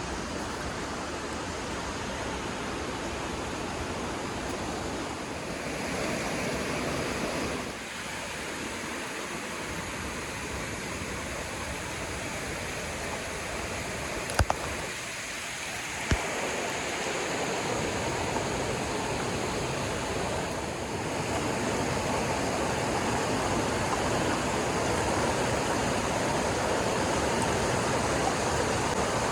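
Steady rushing of running water, like a stream, with two sharp clicks about a second and a half apart midway.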